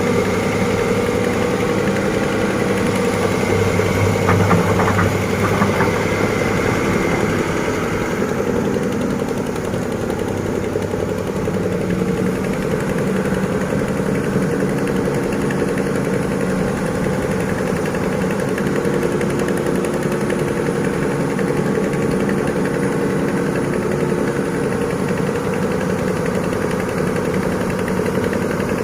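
Heavy diesel engine of construction machinery running steadily, a little louder and busier for the first eight seconds, with a few faint clicks around five seconds in, then settling to a steady run.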